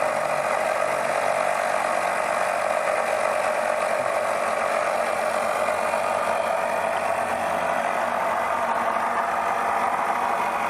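Smoke-test machine running steadily, its pump pushing smoke into the engine's intake vacuum to reveal a vacuum leak, a constant even hiss and hum.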